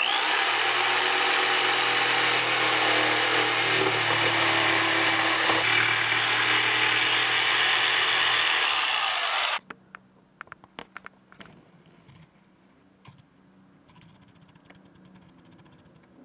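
Corded DeWalt jigsaw sawing a rounded corner into a plywood tabletop: a loud, steady cutting noise with a high motor whine that winds up at the start and winds down as the saw stops about nine and a half seconds in. After that, only a few faint clicks.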